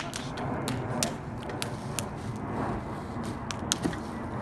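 Hammer blows on a wedge driven into a log being split: sharp, irregular metallic clinks, about two a second, the loudest right at the start, about a second in, and near the end.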